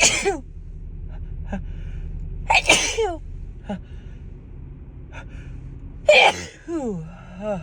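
A woman sneezing three times, about three seconds apart, each sneeze trailing off in a falling vocal sound. The last one ends in drawn-out falling sighs, all over a steady low hum. These are allergic sneezes, which she puts down to dust.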